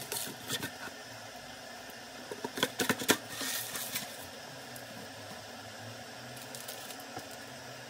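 Paper cup-noodle container and its peeled-back lid being handled and turned over: light rustling and crinkly clicks, with a quick cluster of sharper clicks and a rustle about two and a half to four seconds in.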